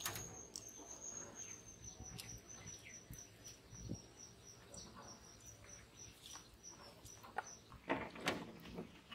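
A thin, high-pitched steady tone, like an insect's drone or a held bird whistle, that holds for about seven and a half seconds and then stops, over faint outdoor ambience. A few soft knocks come near the end.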